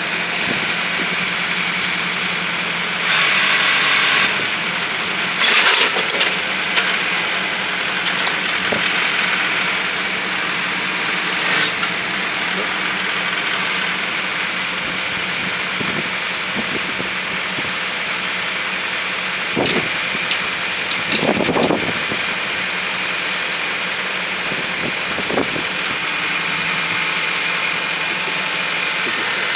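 Tractor engine running steadily while powering a three-point-hitch backhoe attachment, with a few brief louder bursts of noise as the backhoe is worked.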